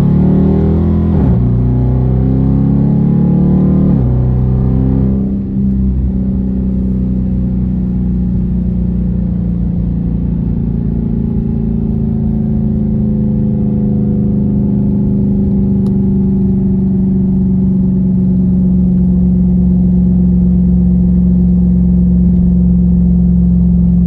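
Dodge Charger Daytona's HEMI V8, exhaust fitted with Dynomax Race Bullet resonators in place of the mid mufflers, pulling through a couple of upshifts in the first few seconds, then holding a steady note at cruise. Heard from inside the cabin.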